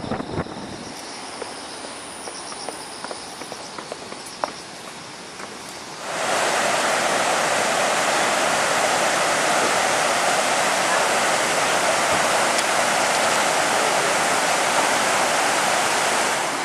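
River water rushing over a weir and through shallow rapids: a loud, steady rush that starts suddenly about six seconds in. Before it comes a quieter stretch of open-air ambience with a few faint clicks and faint high chirping.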